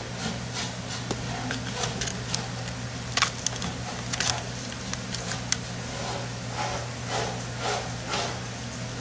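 Steady low hum of room tone, with a few scattered light clicks and taps.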